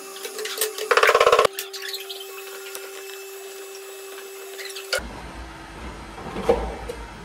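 Electric pottery wheel humming steadily while a loop trimming tool scrapes ribbons of leather-hard clay from the foot of a small cup, with a loud half-second rattle about a second in. About five seconds in the hum stops and the sound turns to a low rumble with light scraping and handling.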